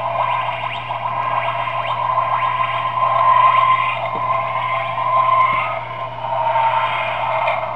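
Electronic sound effect played through the small speaker of a battery-powered TARDIS bobblehead toy: a thin, tinny, wavering noise that swells and fades in repeated waves.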